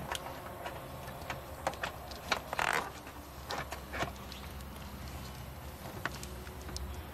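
Clutch hydraulic line and master-cylinder parts being handled and fitted: scattered light clicks and taps, with a brief scraping rustle about two and a half seconds in, over a low steady hum.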